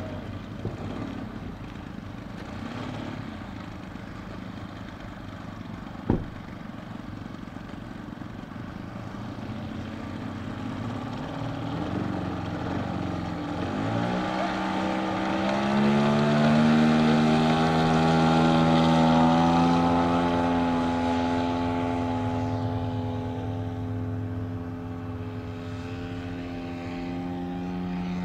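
Radio-controlled scale Morane-Saulnier D-3801 model airplane with its propeller turning at low throttle as it taxis, with a sharp click about six seconds in. About 13 seconds in the motor throttles up with a rising pitch for the takeoff. It then holds a steady, louder tone as the model lifts off and climbs away, fading slightly near the end.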